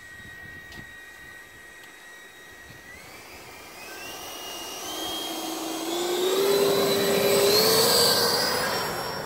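Electric ducted fans of a radio-controlled Eurofighter model jet. They run with a steady high whine, then from about three seconds in the pitch climbs in steps as the throttle opens for the takeoff roll. The sound grows loud and starts to fade near the end as the jet moves away down the runway.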